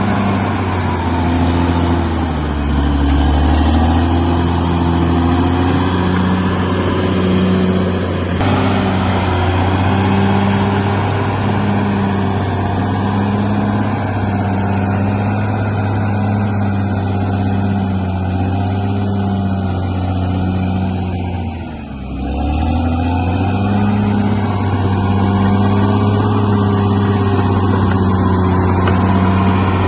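Bulldozer's diesel engine running hard under load, its pitch wavering a little; about 22 seconds in it drops briefly and revs back up.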